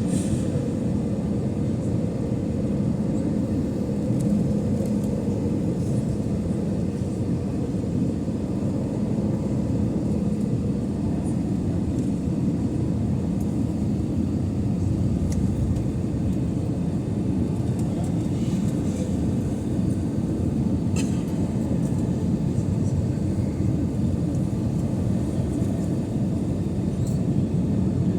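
Airbus A320 cabin noise in flight: a steady low rumble of engines and airflow, with a faint hum running through it.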